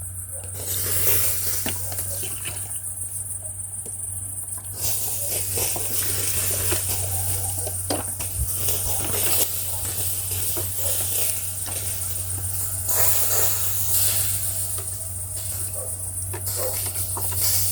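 Bonfire crackling with scattered sharp pops and a hiss, over a steady high chirping of crickets.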